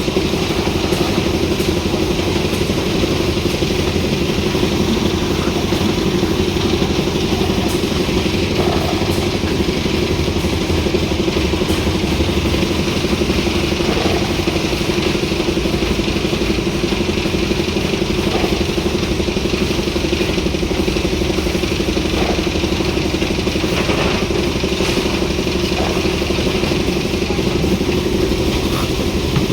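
Engine of a concrete mixer lift machine running steadily at a constant speed, with a few faint knocks.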